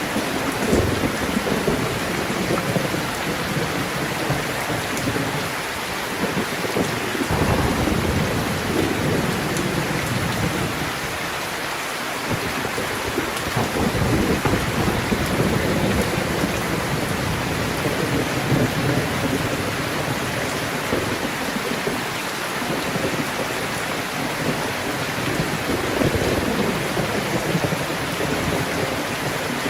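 Heavy rain falling steadily, with thunder rumbling low in long rolling swells several times.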